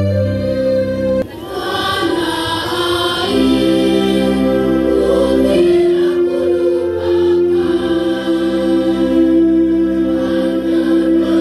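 Large school choir singing an Indonesian patriotic song in unison with electronic keyboard accompaniment. The keyboard's sustained chord sounds alone at first, and the massed voices come in about a second in.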